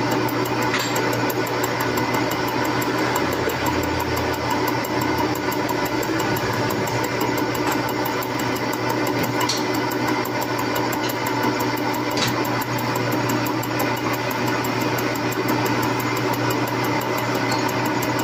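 Metal lathe running and turning a metal shaft, a steady hum of the motor and gearing with the cutting tool working the metal. A few light clicks stand out, about a second in and again around nine and twelve seconds.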